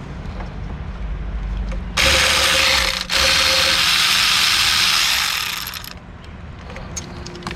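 Powered ratchet spinning an ignition-coil hold-down bolt on a Ford 4.6 V8. It runs in two loud spells, one short and one longer, with a brief break about three seconds in, and tapers off after about six seconds.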